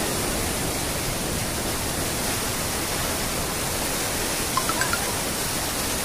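Floodwater rushing over an overflowing weir in a steady torrent, with a few brief faint sounds over it about four and a half to five seconds in.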